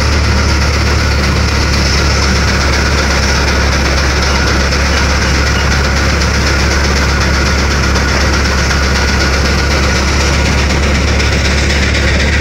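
Belt-driven antique threshing machine and its drive running steadily under load: a continuous low hum beneath a dense mechanical rush, without a break.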